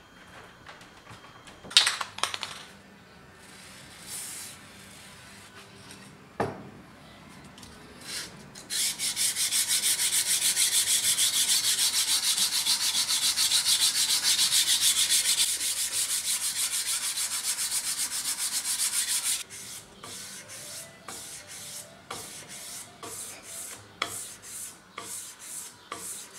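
Sandpaper rubbed by hand on a steel knife blade, in quick even back-and-forth strokes that run steadily for about ten seconds from about a third of the way in. After that come scattered shorter strokes. Earlier there is a brief clatter about two seconds in and a single knock a few seconds later.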